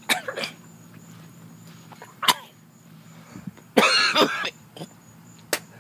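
A man coughing and hacking in short harsh bouts, the longest and loudest a little under four seconds in. It is his reaction to the burn of a whole Trinidad Scorpion pepper.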